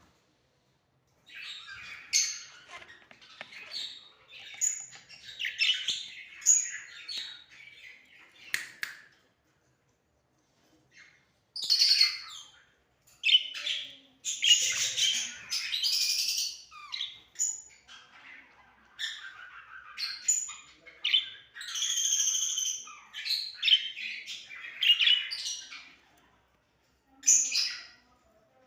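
Lovebirds chirping and squawking in quick, high-pitched bursts, broken by a couple of short pauses.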